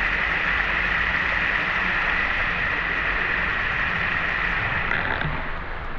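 Steady rushing hiss of water pouring over a small river waterfall, easing off a little near the end.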